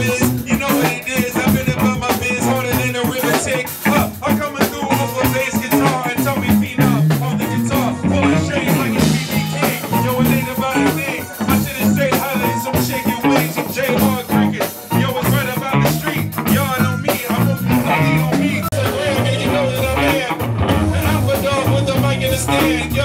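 Live band performance: a singer singing into a microphone over guitar and a drum kit playing a steady beat.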